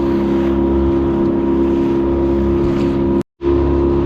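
A small fishing boat's motor running steadily at trolling speed, with hull and water noise under it. The sound drops out completely for a split second about three seconds in.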